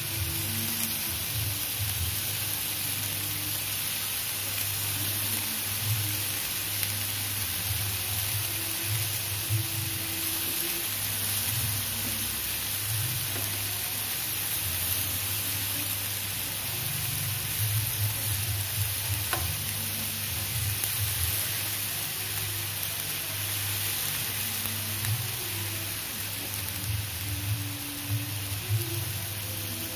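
Chicken satay skewers sizzling steadily on a hot grill pan, over a low hum. Now and then metal tongs click against the pan as the skewers are turned.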